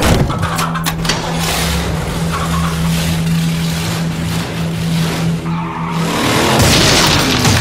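A vehicle engine runs with a steady low hum under tyre skidding and whooshing noise. About six seconds in it revs up and grows louder.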